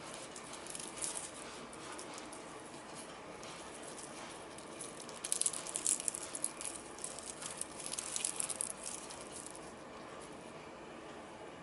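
Dry crackling and rustling with light clicks, as of brittle dried food being handled, densest for a few seconds past the middle.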